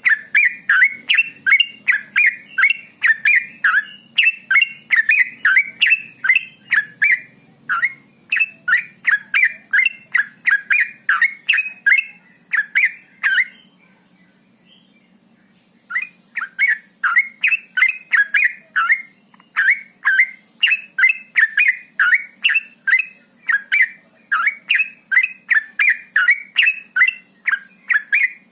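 Yellow-vented bulbul (trucuk) singing a rapid chattering run of short repeated notes, about three to four a second, breaking off for a couple of seconds about halfway through and then starting again.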